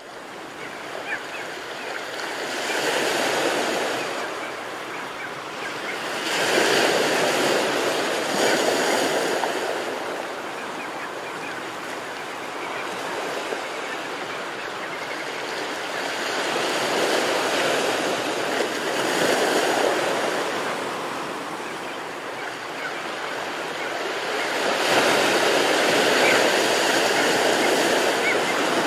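Ocean waves breaking on the shore: a steady rushing surf that swells and eases every few seconds as each set of waves comes in.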